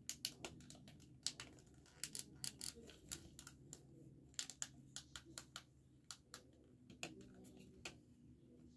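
Faint, irregular clicking, several clicks a second, of small plastic buttons on a pair of B39 wireless headphones being pressed over and over.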